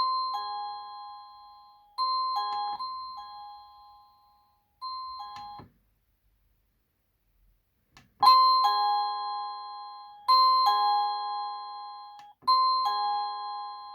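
EMASTIFF wireless doorbell chime playing a polyphonic electronic ringtone, a short melody phrase repeated about every two seconds, each note fading away. The tune cuts off abruptly about five and a half seconds in. After about two seconds of silence and a faint click, a ringtone starts again near eight seconds and repeats its phrase.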